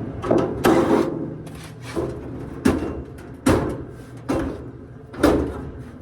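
A series of about seven sharp metal knocks and clunks, irregularly spaced, each ringing briefly: parts of a Samsung dryer's cabinet being handled and knocked during disassembly.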